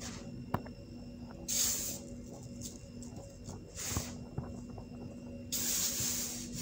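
Hands crushing and raking dry baking soda crumbles, giving soft crunchy clicks and three sandy, hissing pours as the powder slides and falls: briefly about a second and a half in, again about four seconds in, and longer near the end.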